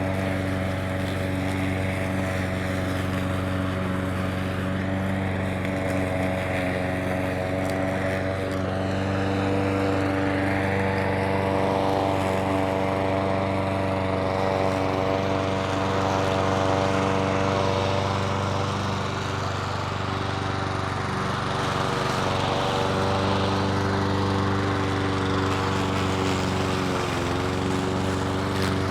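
Petrol lawn mower engine running steadily, its pitch dipping briefly near the end.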